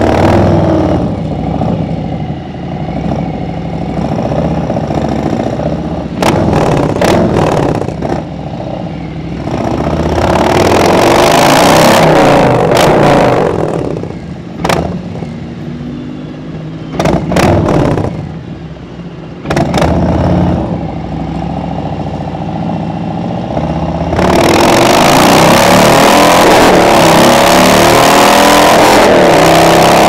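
2017 Harley-Davidson Road Glide Special's Milwaukee-Eight V-twin engine running low at first, then revving and accelerating in several surges with the note rising each time and dropping away in between. From about 24 seconds in it pulls steadily at road speed with a rush of wind over the microphone.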